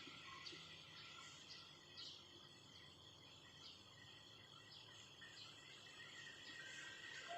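Near silence: faint background hiss with scattered short, high chirps.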